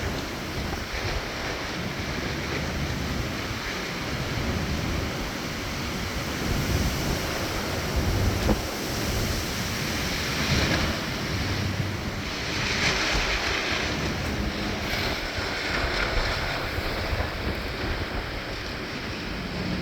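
Strong storm wind gusting, buffeting the microphone with a low rumble and a rushing hiss that swells in several gusts.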